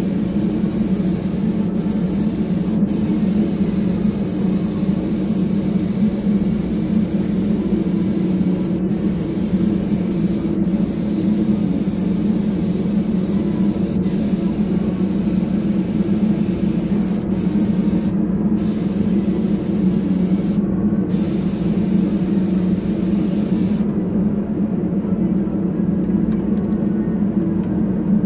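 Gravity-feed spray gun hissing as it sprays paint, with short breaks where the trigger is let go. The hiss stops about 24 seconds in. A steady low machine hum runs underneath.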